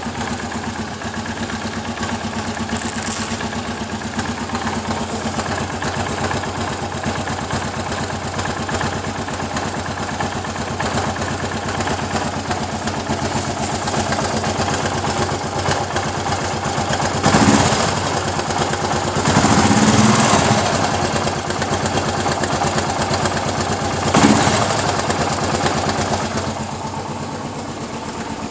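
Suzuki DR 800's big single-cylinder engine idling while warming up from a cold start, growing louder briefly three times in the second half. It carries the knocking noise that the owner hears while the engine is below running temperature and that goes away once it is warm.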